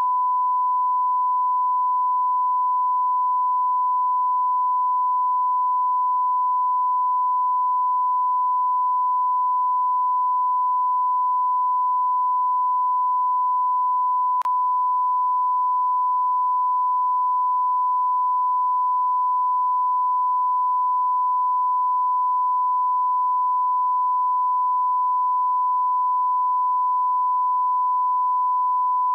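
Continuous, steady 1 kHz sine-wave test tone: the line-up reference tone that goes with a colour-bar test card.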